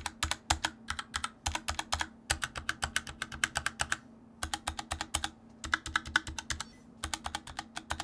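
Stabilized keys of a Glorious GMMK Compact 60% mechanical keyboard with Gateron Brown switches being pressed rapidly over and over in several runs with short pauses, each press giving a sharp clack: a stabilizer sound test.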